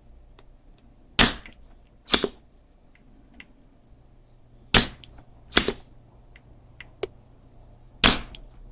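Spring-loaded desoldering pump snapping: five sharp snaps in rough pairs, as molten solder is sucked off a connector's pins.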